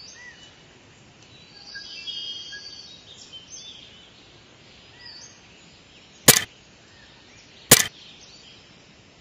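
Faint outdoor background noise with birds chirping, broken by two sharp clicks about a second and a half apart late on.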